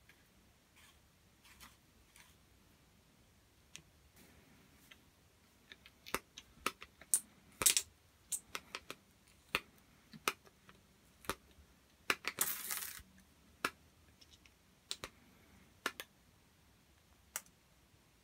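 Restored Tecalemit lever-action grease gun being pumped: a run of sharp, irregular metallic clicks from the lever and plunger, with a short hissing spurt about twelve seconds in as grease comes out of the hose nozzle.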